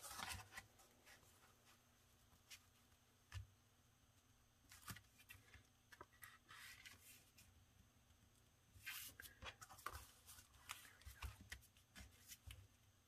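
Faint, scattered rustling and light taps of paper envelopes being handled and pressed flat on a cutting mat, busier in the second half.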